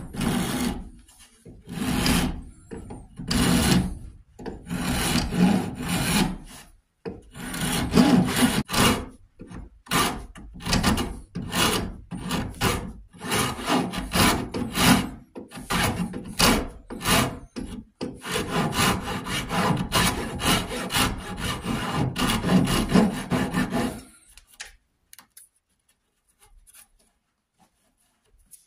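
A flat hand file rasping across red oak in quick, repeated push strokes. The strokes stop about four seconds before the end.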